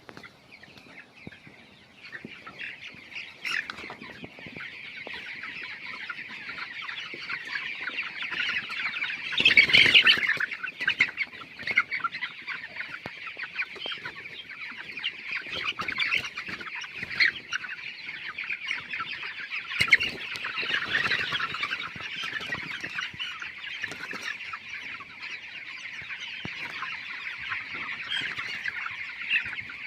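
A flock of 20-day-old broiler chickens peeping and chirping together in a dense, continuous chorus, with a louder flurry about ten seconds in and another near twenty seconds.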